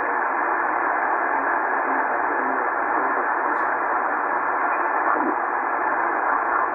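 Tecsun PL-990x shortwave receiver putting out steady static in lower-sideband mode while being tuned down the 80-meter amateur band between stations. Only hissing band noise comes through, squeezed into a narrow voice-width passband, with no station audible.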